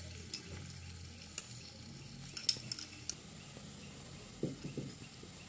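A metal spoon clinking and scraping against a glass dish as chopped onion is tipped into oil in a nonstick frying pan, over a faint steady sizzle of the oil. A cluster of sharp clinks comes about two and a half to three seconds in.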